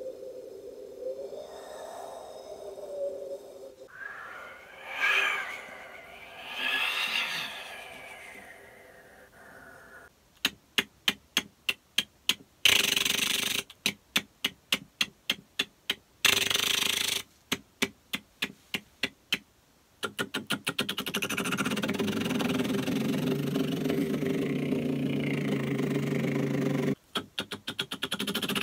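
A person imitating sounds with the voice. First comes a wavering, whistly sound that rises and falls. Then a string of sharp mouth clicks, about three a second, twice broken by a hiss about a second long, like an impact lawn sprinkler ticking and sweeping back. Near the end comes a steady buzzing drone like a small engine, such as a lawn mower.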